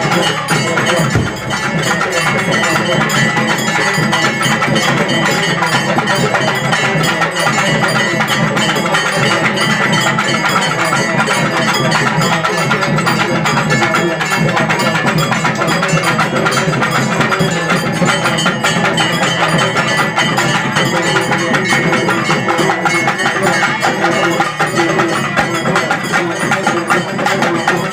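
Loud live percussion music with fast, continuous drumming and a steady high tone over it, with crowd voices underneath.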